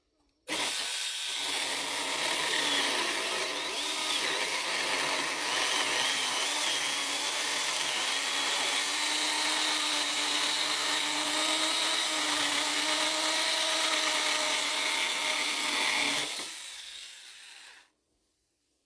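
Hardell 6-inch cordless mini chainsaw cutting through a 2x4, its electric motor whining steadily under the chain's rasp. It starts about half a second in, runs for about sixteen seconds, then drops off and winds down near the end as the cut finishes.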